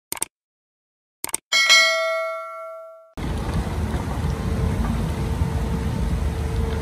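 A few short clicks and a loud bell-like ding that rings out and fades, then an abrupt cut about three seconds in to a heavy machine's engine running steadily with a low rumble and a steady hum.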